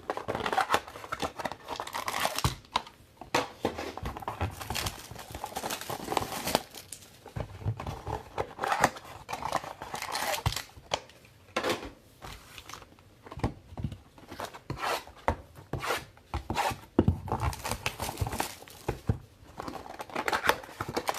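Plastic shrink wrap being torn and crinkled off sealed trading-card boxes, with irregular rustling, tearing and small clicks of the packaging being handled.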